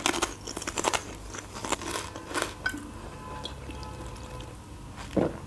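Close-up chewing of crunchy snacks, with dense crunches and mouth clicks for the first two seconds or so. Then beer is drunk straight from a glass bottle: liquid running and gurgling in the bottle, quieter, with a swallow about five seconds in.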